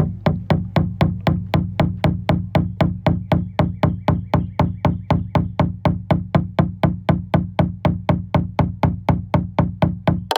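Background music with a steady, even percussive beat of about four clicks a second over a sustained low bass tone.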